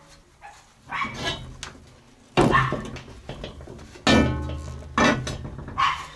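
A heavy cast-iron kazan and its cast-iron stand being lifted and set down on a wooden table: clunks about two and a half and four seconds in, the second followed by a brief metallic ring.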